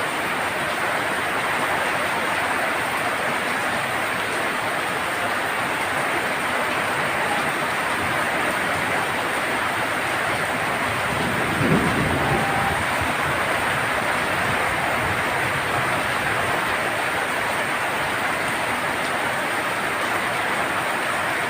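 Heavy monsoon rain drumming steadily on a tin roof, an even hiss throughout. About halfway through comes a brief low rumble that stands out above the rain.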